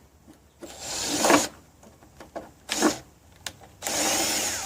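Handheld power driver running sheetrock screws into a plastic speaker horn and its cabinet in short bursts of motor whirr: one about half a second in, a brief one near three seconds, and a longer run near the end. The screws are driven only most of the way, so the plastic horn does not break.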